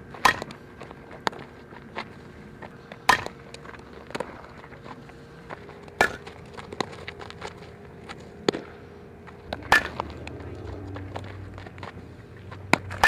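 Sharp cracks of a softball being hit and caught in leather gloves during infield ground-ball drills, about every three seconds, with lighter clicks and knocks in between.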